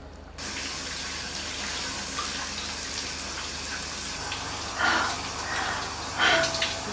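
Shower water pouring steadily onto a tiled floor, starting suddenly about half a second in. Near the end there are two short, loud cries from a woman sobbing under the shower.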